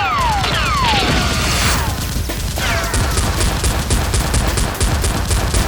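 Gunfire sound effects: a rapid volley of shots with several falling whistles in the first three seconds, over music with a steady beat.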